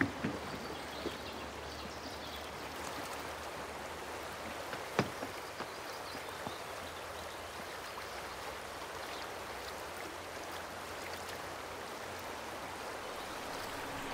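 Stream rushing over rocks, a steady even wash of water, with one sharp tap about five seconds in.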